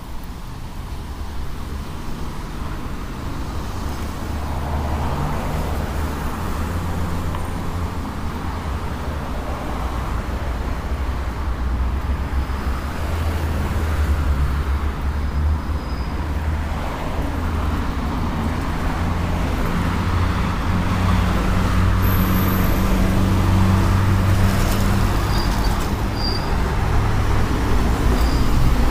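Road traffic on a city street: a steady rumble of car engines and tyres passing, growing gradually louder toward the end.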